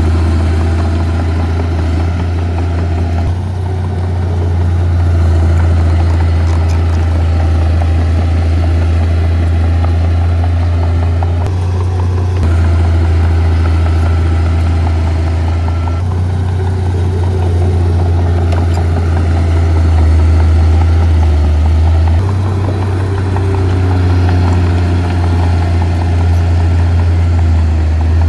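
Heavy diesel engine of earthmoving equipment running steadily with a deep, loud hum. Its engine speed steps up or down slightly a few times.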